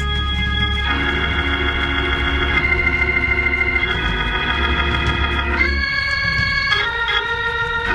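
Church organ playing sustained chords over a held bass note, the chords changing several times; the bass drops out about six seconds in.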